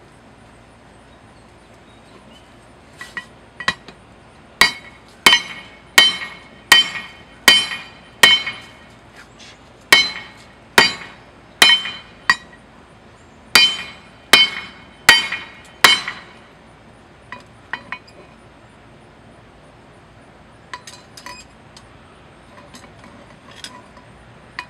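Hand hammer striking a hot claw-hammer head held in tongs on a steel plate used as an anvil, forging it out into a hatchet blade. About fourteen heavy, ringing blows fall a little more than one a second, with a short pause midway. Then come a few light taps near the end.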